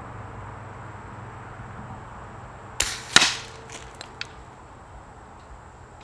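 Daystate Red Wolf .25 HP precharged pneumatic air rifle firing one shot. A sharp click comes just before a louder crack about three seconds in, followed by a few light clicks.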